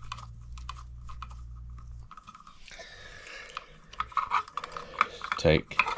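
Plastic wire nut being twisted onto a bundle of bare copper ground wires: irregular crackling clicks and crunches of plastic and wire, with a low hum in the first two seconds.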